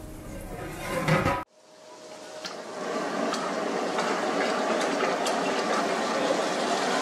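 A brief metallic clatter about a second in, then food sizzling steadily in a frying pan on a gas burner, with a metal ladle clinking and scraping against the pan as it stirs.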